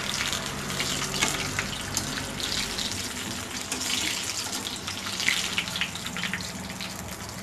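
Gram-flour-battered prawn chops deep-frying in a wok of hot oil: a steady sizzle with scattered crackling pops.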